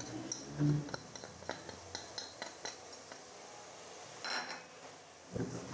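A metal spoon clinking and tapping lightly against a metal cooking pot as ground spices are spooned in, irregular small taps with a brief louder scrape about four seconds in.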